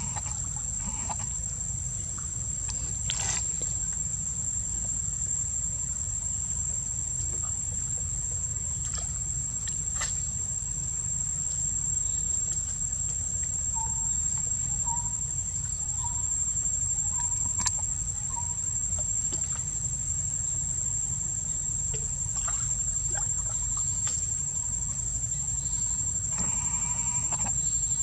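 Insects droning steadily on one high pitch, over a low steady rumble. A few short chirps come in the middle, and a brief call near the end.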